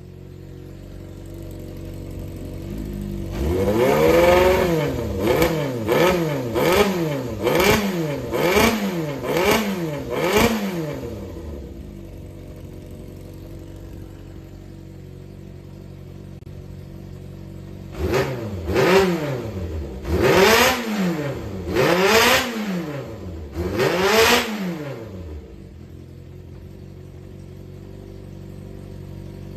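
Yamaha XJR400 inline-four engine idling and being blipped: about seven quick revs in a row, then idle, then four more revs. The engine is being test-run to show it runs well, with no abnormal noise.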